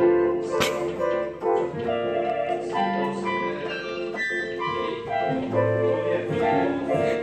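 Portable electronic keyboard being played: a melody of changing notes over held chords.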